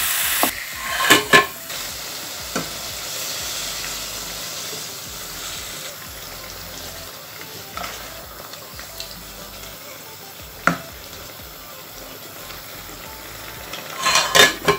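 Flat-bean curry sizzling in an aluminium pot while a wooden spoon stirs it, knocking against the pot twice about a second in and a few more times later. The sizzle slowly dies down, and a metal lid clatters onto the pot near the end.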